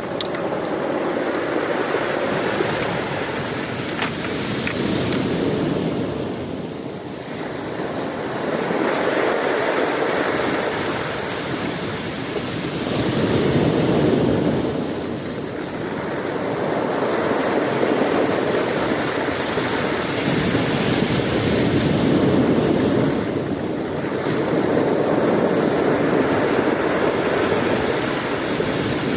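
Ocean waves breaking and washing on a shore, a continuous surf wash that swells and ebbs every few seconds, with some wind on the microphone.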